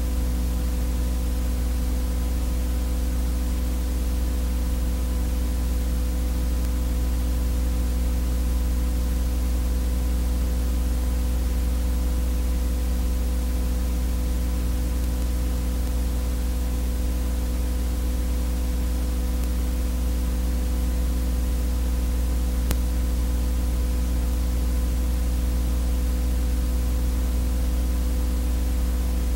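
Steady electrical buzz: mains hum with a strong low drone and higher overtones over constant hiss, the noise of a silent 8mm home-movie transfer rather than any sound of the scene. One faint click about three-quarters of the way through.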